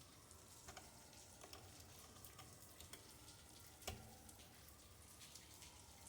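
Near silence with faint scattered clicks and scrapes of a tool working a part loose on a Dewalt drill being taken apart, the sharpest click about four seconds in.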